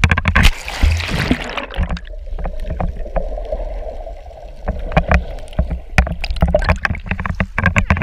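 Sea water splashing over a GoPro in its waterproof housing as it is plunged under the surface, then muffled underwater rushing with scattered knocks and clicks of water against the case.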